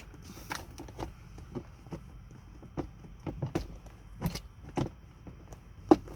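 Irregular clicks and knocks of hands working the glove box out of a Toyota Sienna's dashboard, with one sharp knock near the end the loudest.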